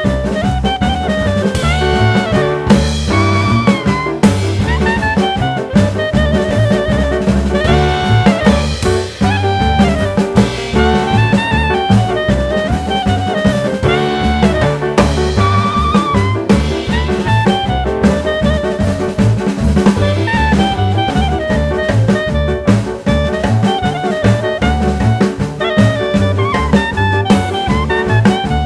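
Background jazz music with saxophone or brass melody over drums and a walking bass line.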